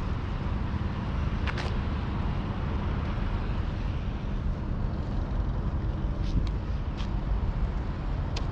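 Cruiser skateboard wheels rolling steadily over pavement, a constant low rumble, with a few sharp clicks, about a second and a half in and again near the end.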